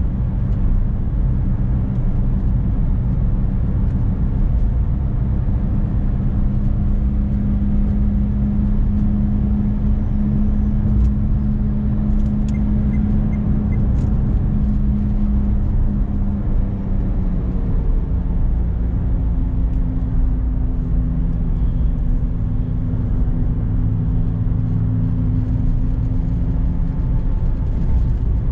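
Renault Clio Symbol's engine running steadily under way, with tyre and road rumble, heard from inside the cabin. The engine note shifts about seventeen seconds in.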